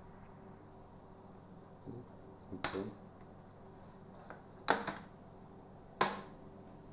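Plastic clips of a Toshiba Satellite C640 laptop's casing snapping loose as the case is pried apart: three sharp snaps, the first about two and a half seconds in, the last near the end.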